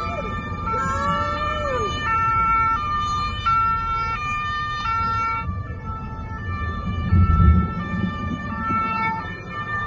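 Electronic two-tone hi-lo siren, switching between two pitches about every three-quarters of a second, over the low rumble of a car moving on the road.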